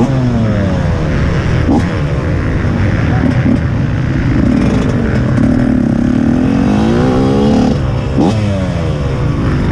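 TM 125 MX two-stroke motocross engine revving hard under load, its pitch climbing and falling again and again as the throttle is worked and gears change, with a long climbing pull that drops off about three quarters of the way through.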